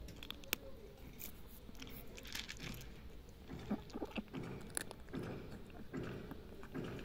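Cat eating dry kibble: irregular sharp crunches and chewing as it bites through the pellets.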